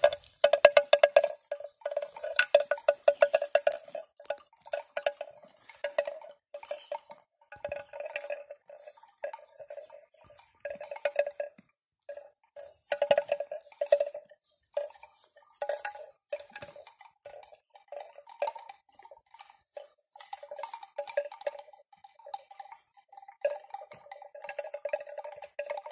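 Bells hung on grazing water buffalo clanking irregularly in uneven clusters of strokes as the animals move. A second, higher-pitched bell joins in the later part.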